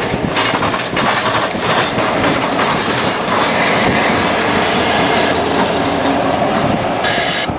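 Norfolk Southern diesel locomotive passing close by, its engine running and its wheels clacking over the rail joints. The sound swells in the first second as the locomotive reaches the microphone, then stays loud and steady.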